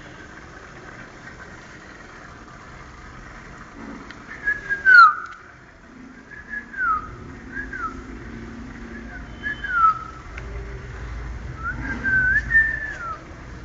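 A person whistling a series of short notes that slide downward in pitch, starting a few seconds in and coming in several phrases, over a steady hiss.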